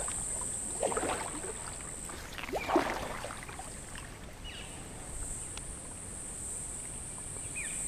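Water splashing twice, the louder splash about three seconds in, over a steady high-pitched drone of insects.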